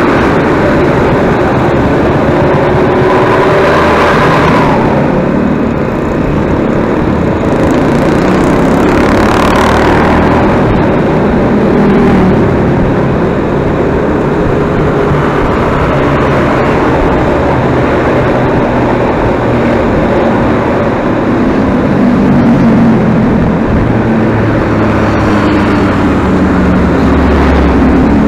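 Tour bus on the move: loud, steady engine and road noise, the engine's pitch drifting up and down, with brief rushing sounds about four and ten seconds in.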